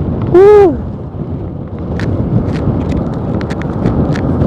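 Wind and road noise on a foam-covered helmet microphone while riding a motorcycle, a steady rushing hiss. About half a second in, a short loud pitched call rises and falls in pitch and is the loudest thing heard.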